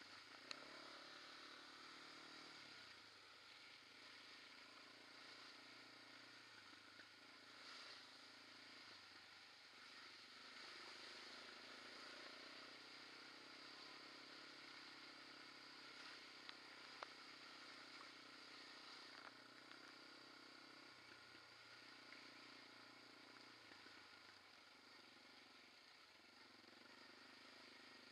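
Quad bike (ATV) engine running at riding speed, heard faintly, its note stepping up and down several times with the throttle. A few small clicks and rattles come through over it.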